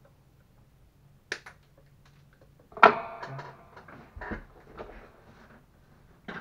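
Tools and parts being handled on a workbench: a few sharp clicks and knocks, with one loud clatter about three seconds in that rings briefly.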